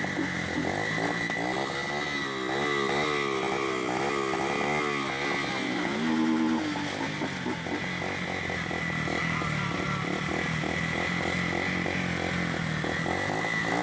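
Motorcycle engine running as the bike is ridden, its revs rising and falling over and over, with a steady high whine above it.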